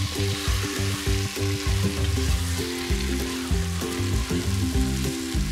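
Raw chicken pieces sizzling in hot oil in a pressure cooker base as a wooden spatula stirs them into fried onions and tomato masala, with a steady frying hiss. Soft background music plays underneath.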